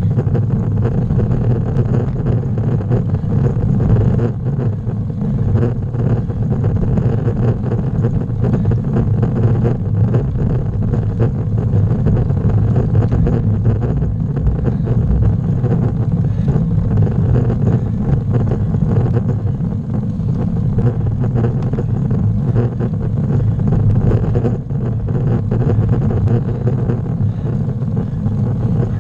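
Steady low rumbling noise of wind and road on a bicycle-mounted camera's microphone while riding, with no distinct events.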